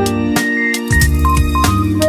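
Instrumental background music with held melody notes and a steady beat; the bass drops out briefly about half a second in.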